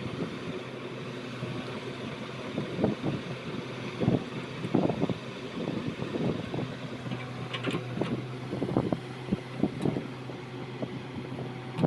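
Engine running steadily at a constant low hum, with irregular knocks and rattles over it.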